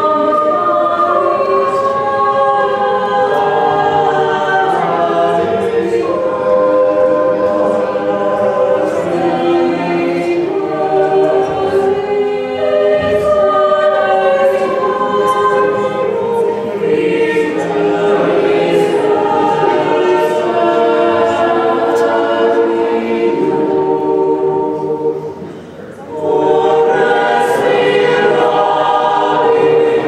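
Mixed choir of men's and women's voices singing in harmony, with a brief break about 25 seconds in before the voices come back in together.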